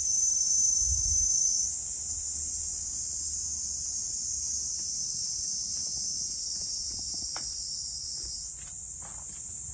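A dense chorus of summer insects, a steady high-pitched hiss that does not let up. A brief low rumble comes about a second in.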